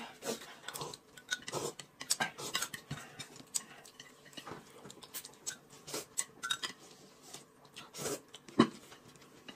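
Eating at a table: chopsticks clicking and tapping against a plate of noodles in scattered short knocks, with a louder slurp of noodles about eight seconds in.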